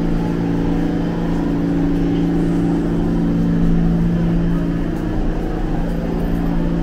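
New York City subway train standing at the platform with its doors open, giving off a loud steady electrical hum in two low tones over a low rumble.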